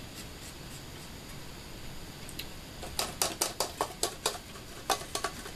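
Brass trumpet being handled, then from about three seconds in a quick run of sharp metallic clicks, about four a second, as its freshly oiled piston valves are pressed up and down to test them.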